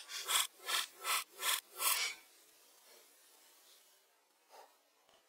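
A hand tool rasping against a wooden pole in five strong, even strokes, about two a second, then quiet apart from one faint stroke near the end.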